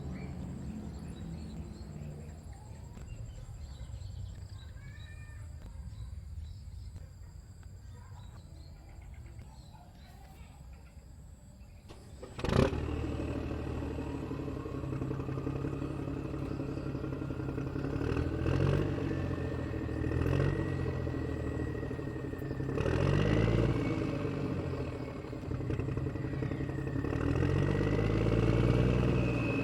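A motor switches on with a sharp click about twelve seconds in. It then runs with a whine that rises in pitch and revs up and down several times.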